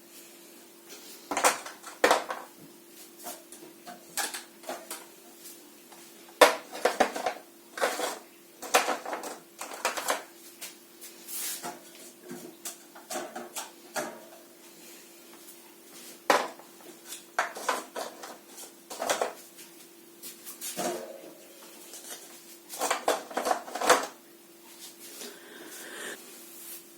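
Plant pots being handled, clattering and knocking as they are picked up and set down, irregularly throughout, over a steady low hum.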